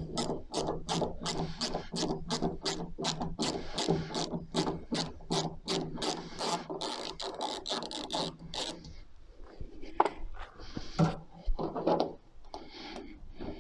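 Ratchet tool turning out a T15 Torx screw, clicking steadily about three times a second; the clicking stops after about nine seconds and a few scattered knocks of handling follow.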